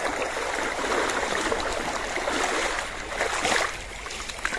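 Flowing, splashing river water, with a couple of sharper splashes about three and a half seconds in and again near the end.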